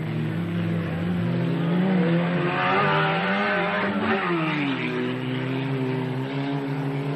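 Autocross saloon race car's engine running hard on a dirt track. Its pitch climbs and falls around the middle, then settles into a steadier, lower note.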